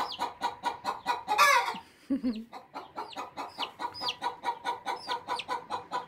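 Chickens clucking in a fast, even run of about six calls a second, with baby chicks' high, falling peeps over the top. A louder, longer call falls in pitch about one and a half seconds in.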